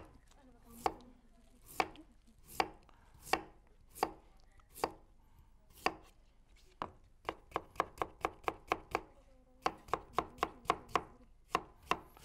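Kitchen knife chopping white radish on a wooden cutting board: single cuts about a second apart at first, then quick runs of several chops a second in the second half.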